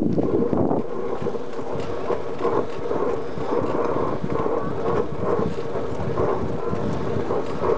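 Steel wheels of a pedal-powered rail trolley (Fahrraddraisine) rolling along the track, with a steady metallic hum and frequent rattling clicks.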